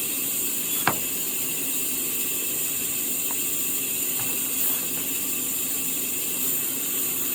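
Sawmill saw machinery running steadily with a high hiss and a low hum, with one sharp knock about a second in.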